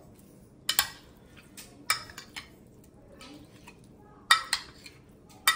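A spoon stirring raw prawns in a spice marinade inside a glass dish, with scattered sharp clinks of the spoon against the glass. The loudest clink comes a little over four seconds in.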